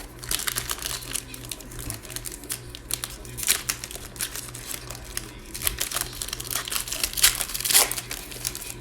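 Plastic wrapper of a trading card pack being torn open and crinkled by hand: a dense crackling, with louder bursts about three and a half seconds in and near the end.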